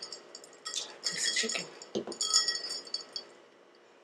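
Ice clinking in a drinking glass of water: bursts of bright, ringing clinks, with a soft knock about two seconds in as the glass meets the table.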